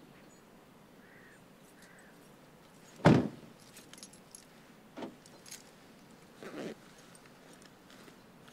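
Suzuki Jimny car door shut with a single loud slam about three seconds in, followed by keys jingling and clicking, with a couple of softer knocks.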